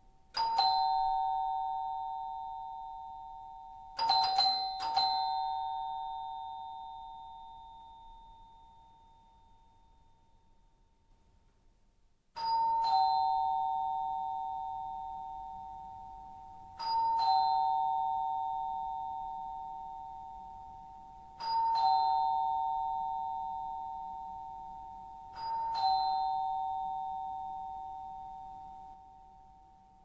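Two-tone door chime ringing ding-dong, a high note then a lower one, each note ringing out slowly. It sounds near the start and twice more around four seconds in, then after a pause rings ding-dong four times, about every four and a half seconds.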